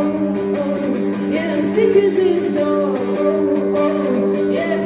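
A woman singing live, accompanied by a guitar holding sustained chords.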